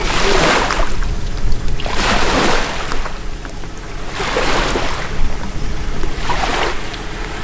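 Small lake waves washing in about every two seconds, each a short hiss of water, over a low steady rumble.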